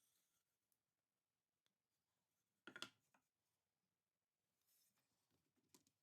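Near silence in a small room, with a short faint clatter a little before the middle and a few small ticks of handling near the end.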